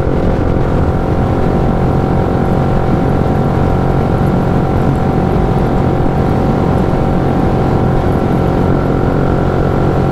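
Yamaha Y15ZR's freshly rebuilt single-cylinder four-stroke engine running at a steady cruising speed, with an even note, over road and wind rumble. The engine is not yet dyno-tuned.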